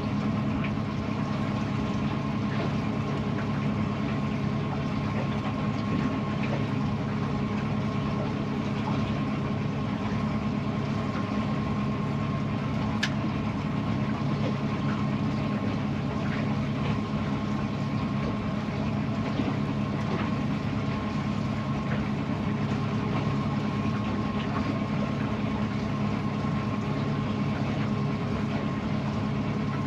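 An engine running steadily at an even, low speed: a constant hum with a few faint ticks and one sharp click about halfway through.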